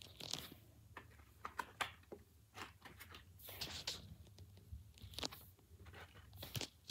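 Faint handling noise: an irregular string of soft clicks, taps and short rustles as a paper origami cube is handled and turned over on a carpet.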